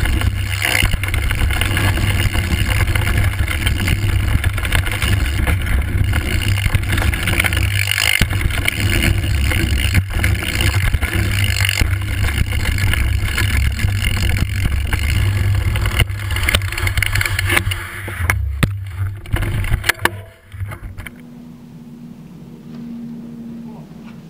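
Wind buffeting the microphone of an old GoPro HD Hero action camera on a mountain bike descending a dirt trail at speed: a loud, steady rumble and hiss with knocks and rattles from the rough trail. About 21 seconds in it cuts off suddenly to a much quieter scene with a faint steady hum.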